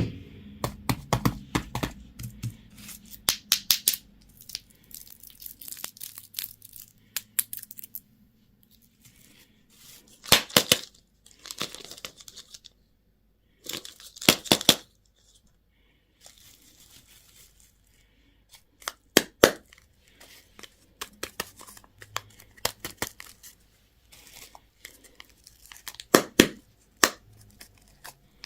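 Candy and toy packaging being torn open and crinkled, in bursts of sharp crackling with short quiet gaps between them.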